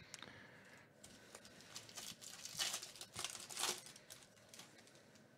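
Foil baseball-card pack (2019 Topps Holiday) being torn open and crinkled by hand, in a series of short crackles that are heaviest about two to four seconds in.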